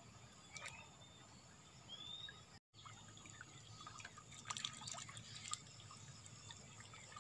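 Faint dripping and trickling of water running off the strings and mesh of a bamboo-poled lift net back into the water, in scattered small drips.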